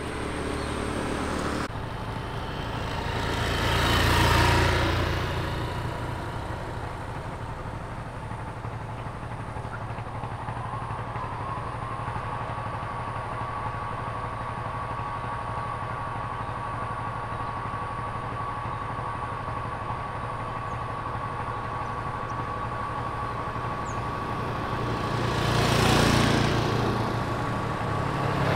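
Road traffic going past: one vehicle approaches and passes about four seconds in, and another near the end, over a steady low engine hum. A faint steady high tone comes in about ten seconds in.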